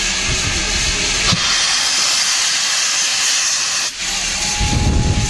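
GWR King class four-cylinder 4-6-0 steam locomotive 6023 King Edward II blowing off steam through its open cylinder drain cocks in a loud, steady hiss. A low rumble joins near the end as the engine edges forward.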